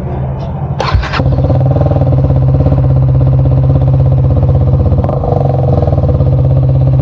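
KTM Duke 250's single-cylinder engine idling with its exhaust removed, a loud, deep, steady open-pipe idle. A short sharp burst about a second in, after which the idle runs louder and even.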